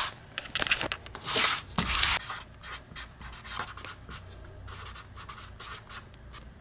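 Scratchy rustling: a quick series of short scratching strokes, loudest in a longer stretch about a second and a half in, thinning out near the end.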